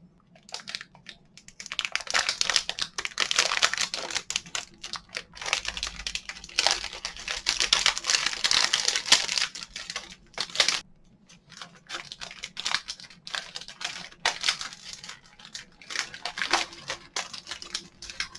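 Plastic snack-cake wrapper being handled and crinkled, in irregular bursts of crackling with short pauses.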